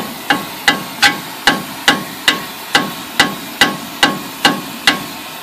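A hammer beating steadily on a seized front wheel bearing on a pickup's hub, metal on metal, about thirteen ringing blows at roughly two and a half a second, stopping near the end. A steady hiss runs underneath.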